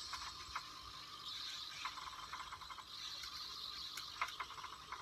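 Hobby servo motors in a 3D-printed InMoov humanoid robot's arms and shoulders running with a buzzing hiss as the robot moves through a gesture, with scattered small clicks.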